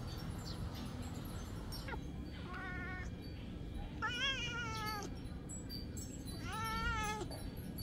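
A cat meowing three times while pinned down and bitten on the neck by another cat. There is a short meow about two and a half seconds in, a longer one about four seconds in that rises and then falls, and a third near seven seconds.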